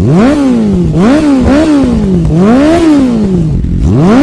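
Motorcycle engine revved in repeated throttle blips, about five times, each a quick climb in pitch that sinks back more slowly.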